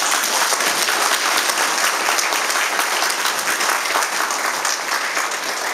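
An audience applauding: a dense, steady round of clapping that eases off slightly near the end.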